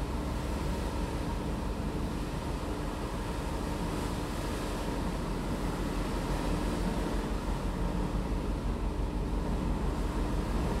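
Passenger ferry under way: a steady low engine rumble with a faint constant hum in it, mixed with rushing sea water and wind.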